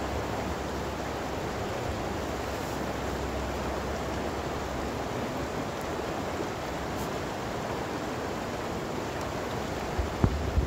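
Steady rushing outdoor noise, with a couple of sharp knocks near the end.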